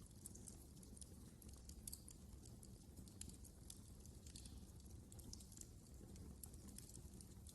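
Wood fire crackling: a quiet, continuous scatter of small, irregular pops and snaps over a steady low rumble.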